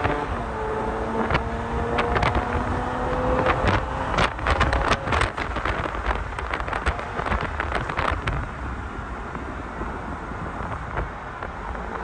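BMW 335is twin-turbo straight-six pulling away, its note rising slowly over the first few seconds, heard from inside the open-top car. Wind buffets the microphone in sharp gusts through most of the stretch.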